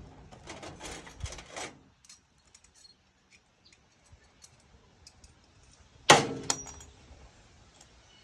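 Small metal hardware clinking and rattling as it is handled, a cluster of clicks early on followed by scattered faint ticks. A sharp clack about six seconds in is the loudest sound.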